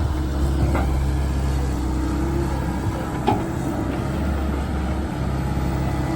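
Komatsu PC130 hydraulic excavator's diesel engine running steadily under work, with a higher hum that comes and goes and two short knocks, about a second in and about three seconds in.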